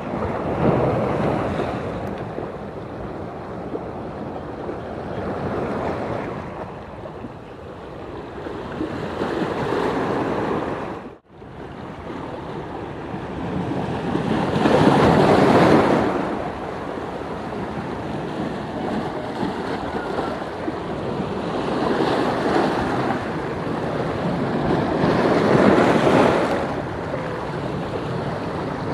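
Sea surf breaking and washing over rocks, swelling and falling back every few seconds, with wind buffeting the microphone. The sound drops out suddenly for a moment about eleven seconds in.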